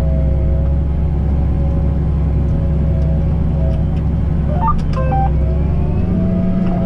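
Tractor engine running steadily under load while pulling a disc through the field. Near five seconds there is a short cluster of brief high tones, and about six seconds in the engine note shifts.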